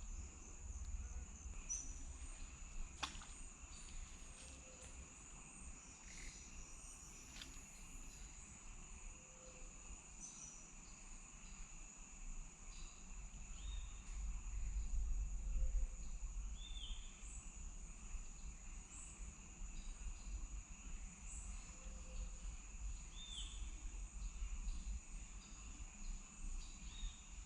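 Rainforest ambience: a steady high-pitched insect drone, with short chirps repeating every second or two and a faint low rumble underneath that swells about halfway through.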